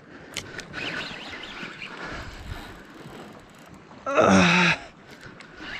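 Steady outdoor wind-and-sea noise, broken about four seconds in by a man's short, loud, wordless cry lasting under a second.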